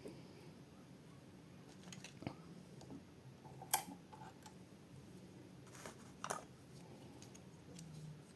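A few light clicks and taps of small metal lock picks and tensioners being handled, spread out over a low steady hum, the sharpest about halfway through.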